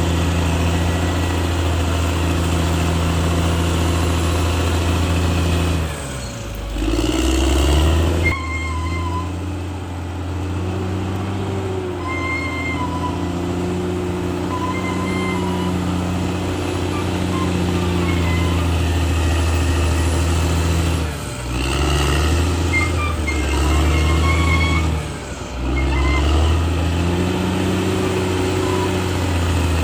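Caterpillar D6R XL bulldozer's diesel engine running steadily, its pitch sagging and picking back up about six seconds in and twice more past twenty seconds as it takes load. Short high squeaks come and go over the engine.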